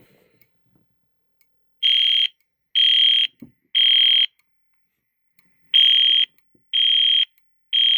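EST Integrity 965 fire alarm speaker strobe sounding its high evacuation alert tone in the temporal-three pattern. It plays three half-second beeps a second apart starting about two seconds in, a pause, then three more. This is the alert signal that comes before the voice evacuation message.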